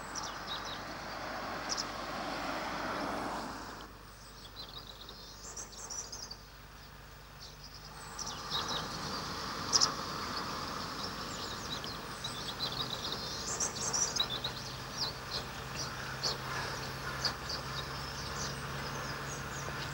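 Outdoor ambience: a vehicle passes on the road in the first few seconds, rising and fading away, then small birds chirp on and off over a faint steady low hum.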